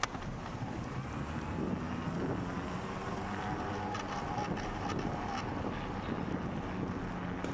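Bicycle riding along a paved path: tyres rolling and wind on the microphone, with a steady low drone underneath and a few faint ticks.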